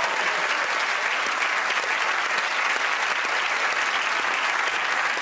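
Studio audience applauding steadily throughout, a dense, even clapping.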